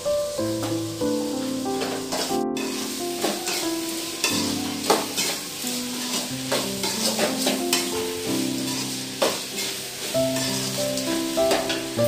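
A steel ladle stirring and scraping a mixture of onions and green chillies sizzling in oil in an aluminium pan, giving repeated scrapes and clicks over a steady frying hiss. Background music plays throughout.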